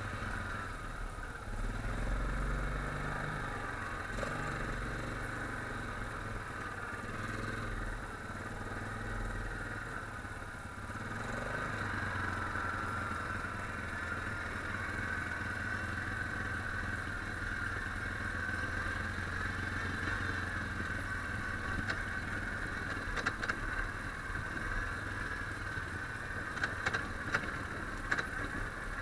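ATV engine running steadily at low speed as the quad rides along, with scattered sharp clicks and rattles near the end.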